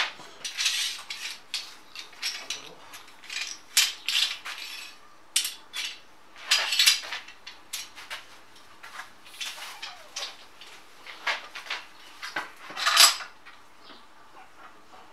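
Irregular clattering of hard objects being handled: sharp clicks and knocks at no steady rhythm, with a few short scraping sounds, the loudest near the end.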